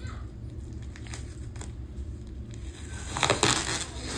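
Cardboard packaging of a boxed couch being opened and handled: scattered light clicks and rustles, then a louder burst of rustling lasting about half a second, a little over three seconds in.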